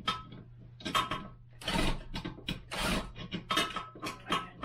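Toilet-seat mounting hardware being worked by hand: a run of sharp clicks, clinks and knocks of hard parts, with a couple of short scraping rattles about two and three seconds in, as a stubborn seat bolt and nut are fought into place.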